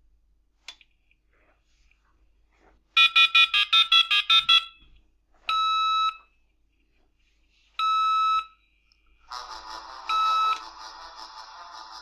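A 33.6k dial-up modem dialing a phone number through its speaker: about a dozen quick touch-tone beeps, then two single beeps a couple of seconds apart and a hissing line noise with one more beep, cut off suddenly near the end as the modem hangs up. The modem is placing a timed call that rings a mobile phone to send one Morse symbol.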